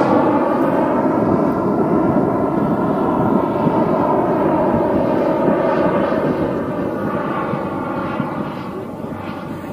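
Jet engine of a JS3 jet glider, a steady whine with several pitches, fading slowly as the glider flies away after its pass.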